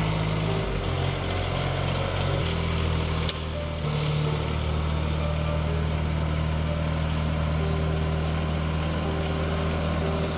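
Engine of a Polaris side-by-side utility vehicle running steadily at low speed while it tows a helicopter, with a single sharp click about three seconds in.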